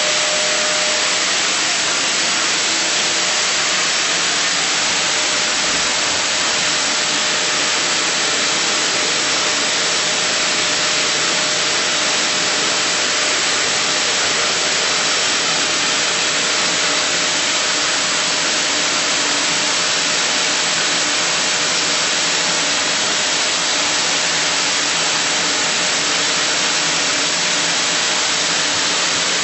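Vacuum cleaner running steadily: a constant loud rushing hiss with a faint steady whine.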